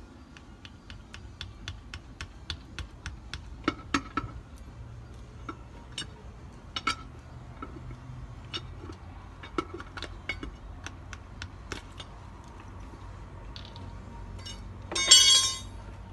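Light, evenly spaced clicking, about three clicks a second, over a low steady hum, with one short loud metallic clatter about a second before the end.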